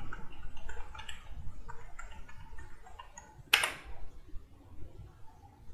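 Computer keyboard keys clicking as a password is typed, about ten quick keystrokes, then one louder, longer clack about three and a half seconds in as the login is submitted.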